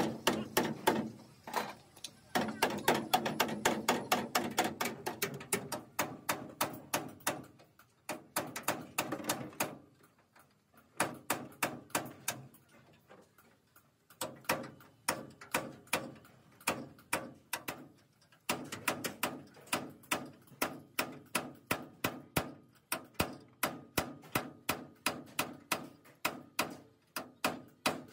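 Hammer blows on metal, repeated steadily at about two or three a second, in long runs with a couple of short lulls, typical of beating out damaged truck bodywork.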